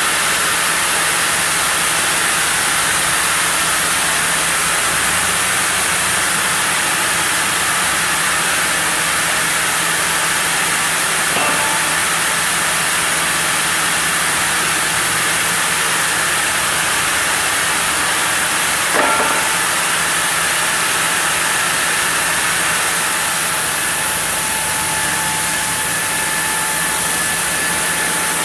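Sawmill machinery milling a zelkova log block, running steadily with a loud even hiss and a low hum. A brief knock comes about eleven seconds in and a sharper one about nineteen seconds in.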